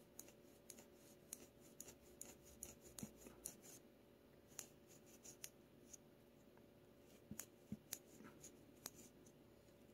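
Faint, irregular plastic clicks and rubbing as a handheld plastic finger massager with rubber rollers is worked over the fingers.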